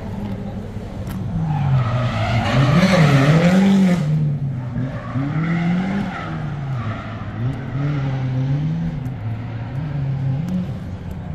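A drifting car: its engine revs up and down over and over, with tyres screeching loudest from about two to four seconds in.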